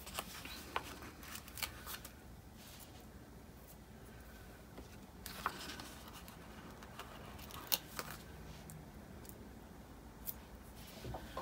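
Faint handling of a paper sticker book: scattered light ticks and brief rustles as stickers are peeled off the sheet and pressed onto a paper planner page.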